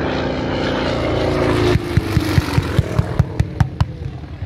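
Piston aircraft engine running, then throttled back with a falling pitch a little under two seconds in. It settles into an uneven idle with regular low pops about five times a second.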